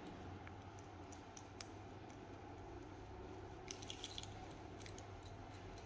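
Faint small clicks and light metal taps from handling a telescopic, adjustable-length bicycle kickstand, with a small cluster of them a little before four seconds in, over a low steady hum.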